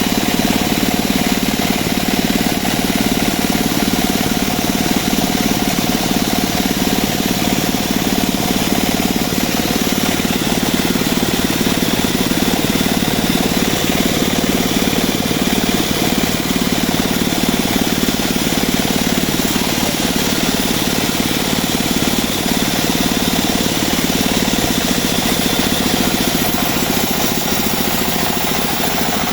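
Engine-driven homemade bandsaw sawmill running steadily, a constant motor hum with hiss above it.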